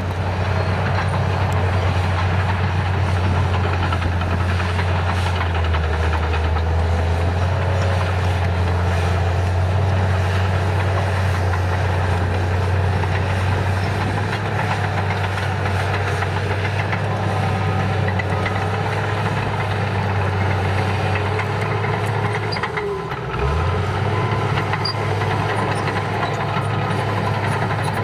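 Caterpillar D5K2 bulldozer's four-cylinder diesel engine running steadily under load while pushing dirt, with a short dip in engine pitch about 23 seconds in before it picks back up.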